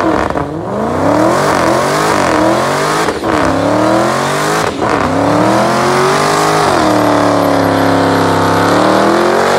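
Dodge Challenger's Hemi V8 revving up and down repeatedly during a burnout, its rear tyres spinning on the asphalt. There are two short breaks in the sound around three and five seconds in. Later the revs hold steady for a couple of seconds before climbing again near the end.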